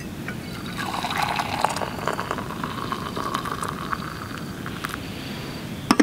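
Hot milky tea poured from an aluminium camping kettle into an insulated steel mug, the pouring note rising in pitch as the mug fills. A light clink near the end as the kettle is set back down on the stove.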